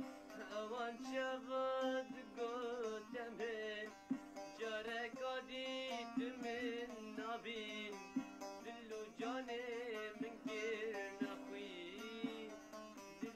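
A young man singing a slow, ornamented melody with wavering vibrato, in phrases over a steady low instrumental drone.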